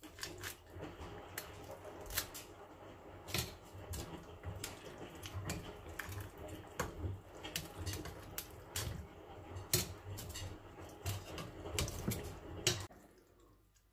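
Kitchen knife cutting into and scraping a raw fish's belly while gutting it: irregular sharp clicks and taps of the blade against the fish and the plastic tub, stopping about a second before the end.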